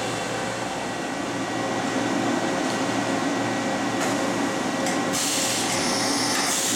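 Clausing Storm 1020SF CNC vertical machining center running with a steady hum of its auxiliary units. About four seconds in, its double-arm automatic tool changer starts a tool change, and a loud high hiss rises around five seconds in and again near the end.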